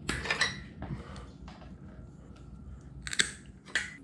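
Hand cutters snipping through the brake and vacuum lines on a Dana 60 axle's knuckle: a few sharp snips and clicks spread over several seconds, the loudest about three seconds in.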